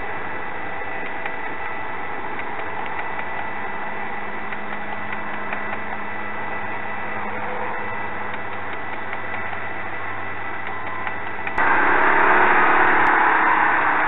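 Steady din of a large flock of birds calling in flight, a dense mix of many voices. About three-quarters of the way through it cuts suddenly to louder machinery noise from a grapple log loader working in a log yard.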